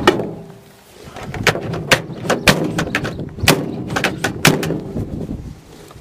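Handling noise at close range: a dozen or so irregular sharp clicks and knocks as a small camera and its strap are fumbled against the top of a microwave's metal case.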